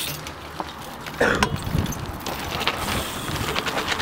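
BMX bike being ridden on tarmac: tyre rumble and scattered clicks, starting about a second in.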